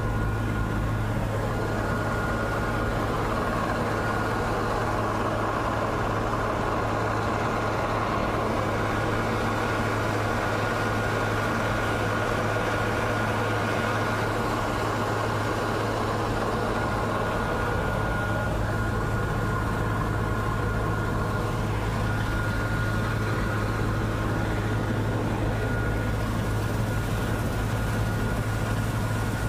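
Bizon Z056 combine harvester running steadily while harvesting: its diesel engine drones at constant speed under the clatter of the working machinery, with a thin steady whine held high above it.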